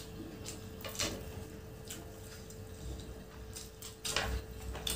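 Quiet eating sounds of noodles being chewed: faint scattered clicks and smacks from mouths and forks on plastic plates, a little louder about four seconds in, over a faint steady hum.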